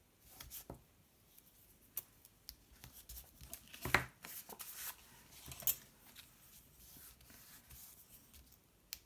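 Hands handling a cardstock panel and double-sided tape: scattered rustles, scrapes and small crackles. The loudest is a sharp crackle about four seconds in, with another nearly two seconds later.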